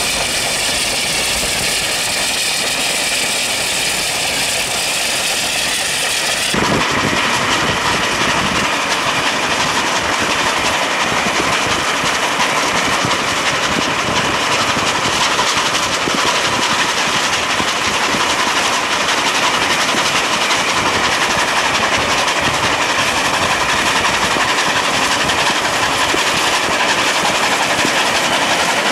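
NSW C36-class steam locomotive 3642 running with its train, heard from alongside as a steady loud rush of exhaust and wheels on the rails. About six and a half seconds in, the sound cuts abruptly to a louder, fuller take.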